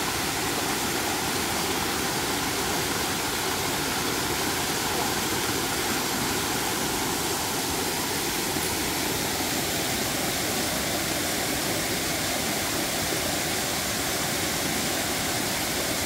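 Hot spring waterfall: water cascading over rock ledges in a steady, even rush.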